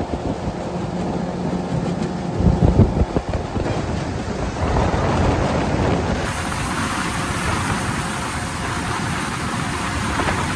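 John boat's outboard motor running as the boat travels, with wind and water noise buffeting the microphone. There are gusty thumps about three seconds in.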